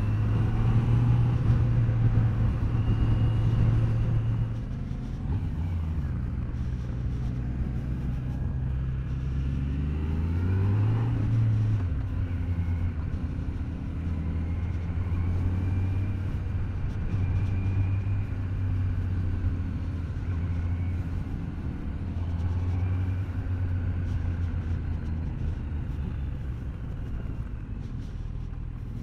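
Kawasaki Z900's inline-four engine running while riding, heard from the rider's seat. It is louder for the first four seconds, then eases off, and about ten seconds in it climbs briefly in pitch before dropping back to a steady note.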